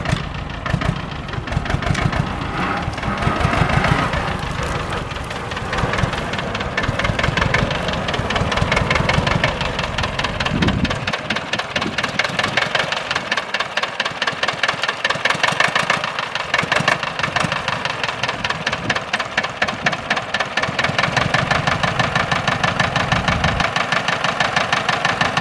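1960s Steyr tractor's diesel engine running, with an even beat of firing strokes and diesel knock; the sound has less low rumble from about eleven seconds in.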